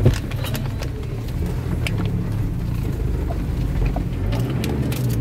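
Ford Everest's turbo-diesel engine running steadily while driving, with scattered short knocks over the top.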